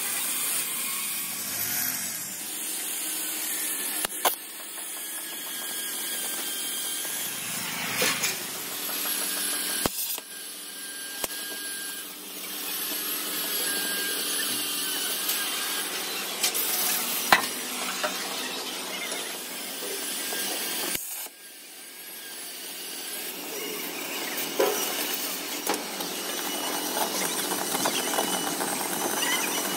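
Truck-building workshop tool noise: a steady hiss of power tools and metalwork, with a few sharp knocks. The sound changes abruptly about ten and twenty-one seconds in.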